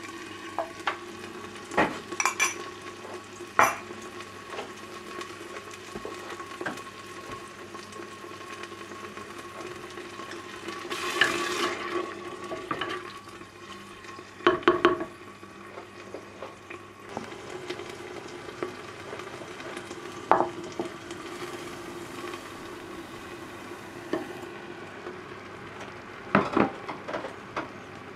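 A metal spoon clinks and scrapes against a ceramic ramekin a few times early on. Later a wooden spoon stirs the sauce in a terracotta pot, knocking against the clay now and then, over a low sizzle from the pot.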